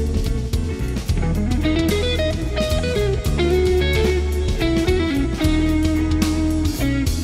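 Live rock recording: an electric lead guitar plays long held notes that bend and slide in pitch, over a band with drums.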